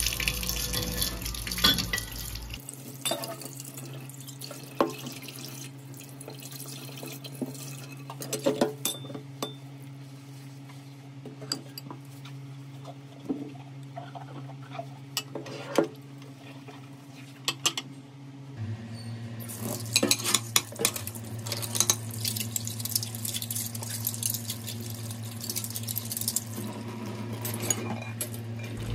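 Dishes being washed by hand in a stainless steel sink: tap water running at first, stopping a couple of seconds in, then sponge scrubbing with scattered clinks of the plate, cup, spoon and glass jar, and the tap running again about two-thirds of the way in as a plate is rinsed. A steady low hum sits underneath.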